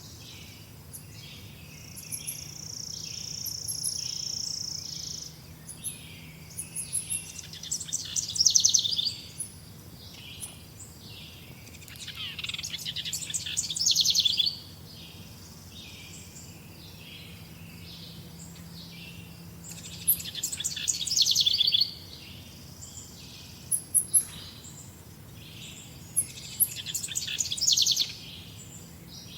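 Songbirds chirping and singing, a steady chorus of short high calls. Four loud, rapid trilled phrases, each about two seconds long and growing louder, recur every six seconds or so. A held high whistle starts about two seconds in and lasts about three seconds.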